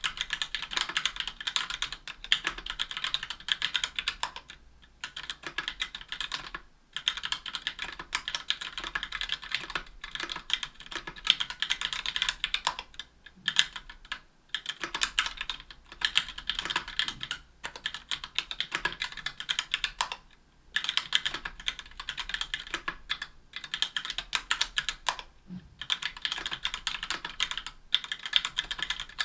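Continuous fast typing on a 60% aluminium-cased mechanical keyboard with Gateron Black Ink linear switches, lubed and clipped screw-in stabilizers and GMK keycaps: a dense clatter of keystrokes bottoming out on an aluminium plate. The typing comes in runs broken by brief pauses.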